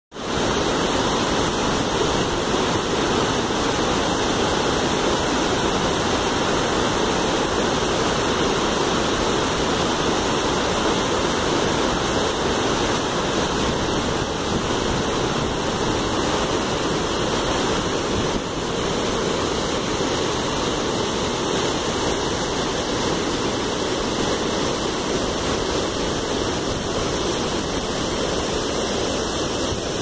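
Large waterfall at high rainy-season flow, water pouring into a churning pool: a steady, unbroken rush.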